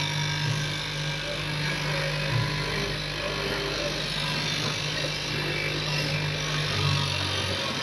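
Factory machinery running with a steady low hum over a noisy background; the hum shifts lower near the end.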